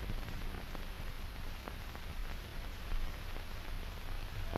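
Steady hiss and low rumble of an old film soundtrack, with a few faint scattered clicks of crackle.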